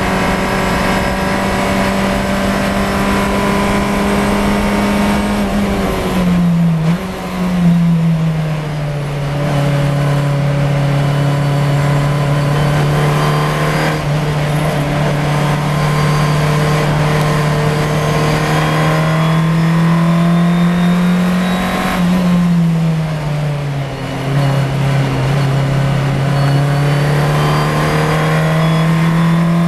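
Race car engine heard from inside the cockpit, running hard at high revs. About six to eight seconds in, the revs drop in a couple of quick steps with a brief blip as the car slows for a bend. The revs then climb slowly, fall away again a little past two-thirds of the way through, and climb once more near the end.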